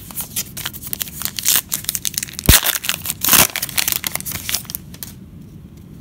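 Foil wrapper of a 2018 Panini Classics football card pack being torn open by hand: a run of crackling crinkles and rips, with a sharp snap about halfway through, dying away shortly before the end.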